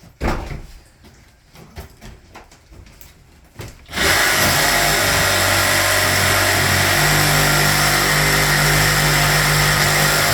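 A few light knocks, then about four seconds in a power saw starts up and runs loud and steady.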